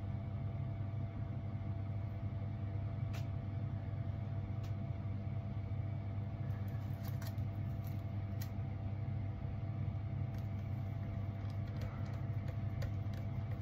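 Steady low electrical-sounding hum with a few sharp clicks of small parts being handled. In the last few seconds come light ticks of a small screwdriver turning a casing screw on an iPod classic.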